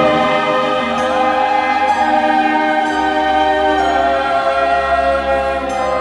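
Background music: slow, sustained chords that shift every second or two.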